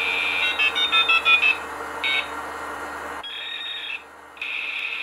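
Electronic intro sound effect: a steady high electronic tone with a quick run of short beeps about half a second in, and one more short beep about two seconds in.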